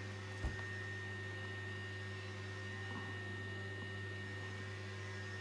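Steady low electrical mains hum with a faint thin high whine and light hiss, and one soft click about half a second in.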